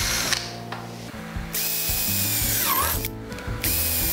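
Cordless drill pilot-drilling holes into a door frame through a paper fitting template. The drill stops just after the start, runs again for about a second and a half, pauses briefly, then starts again near the end.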